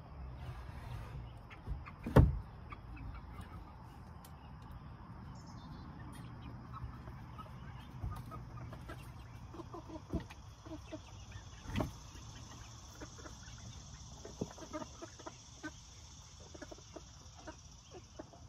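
Chickens clucking in short, scattered calls over a steady high drone of insects. A loud knock comes about two seconds in, with softer knocks later.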